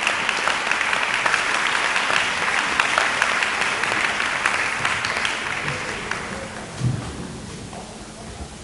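Audience applauding, dense clapping that fades out about five to six seconds in. A single low thump follows about a second later.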